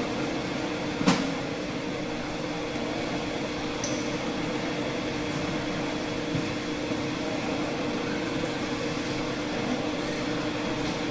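Metal lathe running with a steady hum while the carriage feeds the threading tool along a trapezoidal thread on a steel rod; a single sharp clank about a second in.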